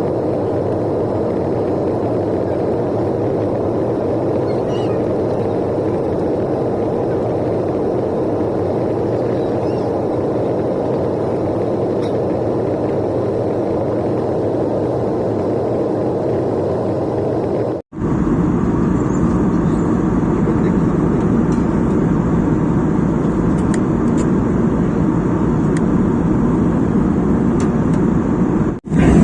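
Steady rushing drone of an airliner cabin: the Airbus A320neo's engines and airflow heard from inside. About two-thirds of the way through it cuts abruptly to another stretch of the same drone, heavier in the low end, and cuts again just before the end.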